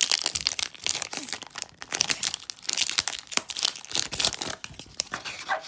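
Foil wrapper of a Pokémon booster pack being torn open and crinkled by hand: a dense run of irregular crackles that thins out near the end.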